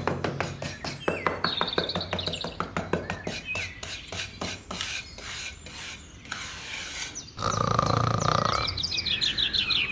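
Small birds chirping in short trills over a rapid run of sharp clicks for the first few seconds; a louder, held sound with a steady tone comes in about seven seconds in.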